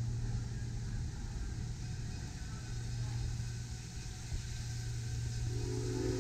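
A steady low mechanical hum, like an engine running, over a noisy outdoor background. Near the end a held chord of several whistle-like tones begins.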